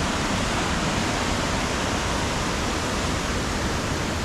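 Waterfall on the Housatonic River: a steady, unbroken rush of falling water.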